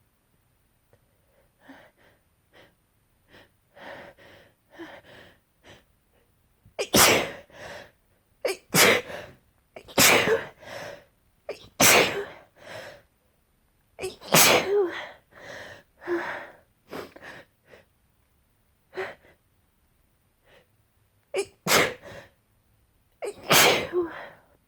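A person in a sneezing fit: a run of about eight loud, wet sneezes in quick succession, coming in two clusters with a short lull between, after a few faint quieter sounds at the start.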